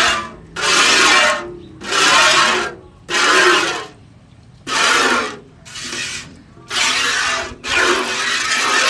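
Cow being milked by hand into a steel bucket: milk squirts from the teat in hissing spurts, about one a second, hitting the milk already in the bucket. One spurt about six seconds in is weaker than the rest.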